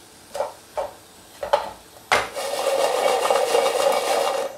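Roasting chestnuts in a nonstick frying pan: a few light knocks as single chestnuts are turned by hand, then about two and a half seconds of continuous rattling as the pan is shaken and the chestnuts roll against it, stopping abruptly.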